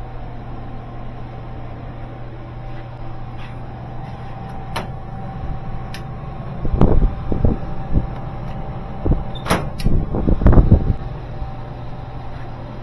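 A steady low hum, with a few sharp clicks and a cluster of heavy knocks and thumps in the second half.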